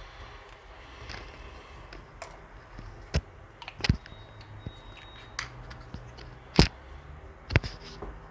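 Small amber glass bottle being handled and capped on a countertop: a few separate sharp clicks and knocks of glass and cap, with faint handling noise between them.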